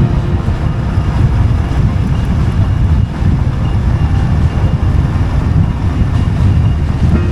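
Honda Rebel 1100's parallel-twin engine running steadily under way, a loud, even low rumble mixed with road and wind noise.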